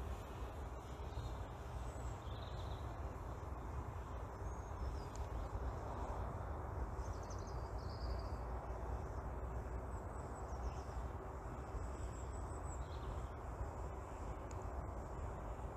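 Steady outdoor background rumble with faint, short bird chirps scattered through it.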